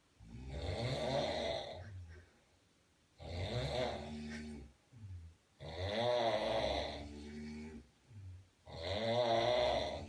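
Two men snoring loudly: four long, drawn-out snores about three seconds apart, each rising and falling in pitch so that they sound like a cow lowing.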